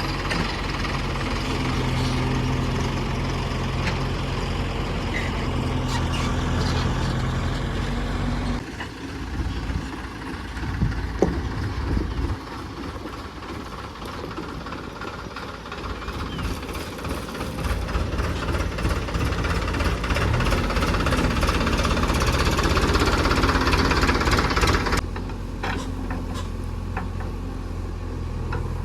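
JCB 3DX backhoe loader's diesel engine running. It holds a steady hum, turns rougher and noisier for a stretch with a few sharp knocks near the middle, then settles back to the steady hum.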